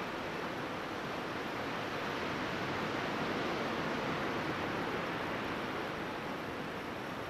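Ocean surf washing onto a beach: a steady rushing that swells a little about halfway through.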